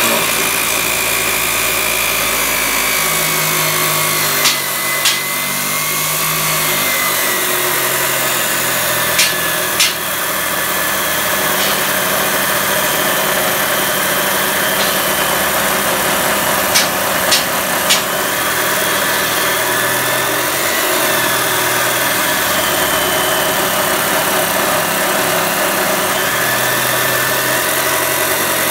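Saitej 14-inch (355 mm) red abrasive cut-off wheel on a chop saw grinding steadily through a clamped solid round metal bar, a loud, even, harsh hiss with the saw's motor running under load. A few sharp ticks come through about five, ten and seventeen seconds in.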